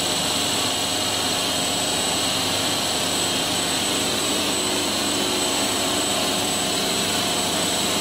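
Pet food extrusion line machinery running: a steady mechanical noise with a thin, high-pitched whine held over it.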